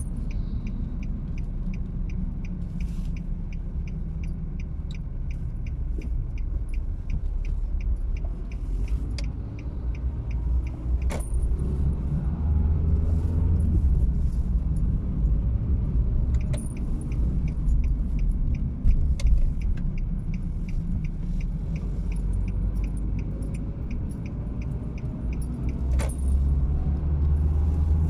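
A car driving on wet streets, heard from inside the cabin: a steady low rumble of engine and tyres, with the engine note rising twice as the car speeds up. A fast, faint ticking runs throughout, and three sharp clicks come at spaced intervals.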